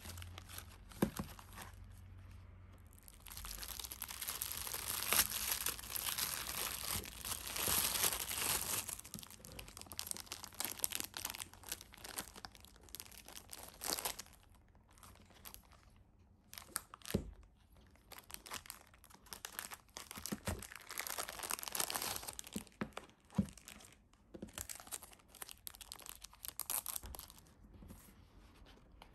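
Crinkly packaging rustling as a set of decorative craft paper is unwrapped and handled. It is heaviest for about five seconds starting about three seconds in, then turns to lighter intermittent rustles and taps.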